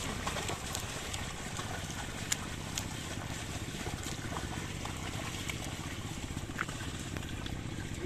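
Mud and water sloshing as a pair of bullocks drag a levelling plank through a flooded paddy field, over a steady low rumble, with a few sharp clicks.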